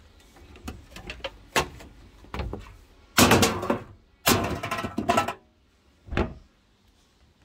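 Plastic bottles and aluminium cans clattering into a plastic wheelie recycling bin in two loud spells, after a few light clicks and knocks. A single thud follows near the end.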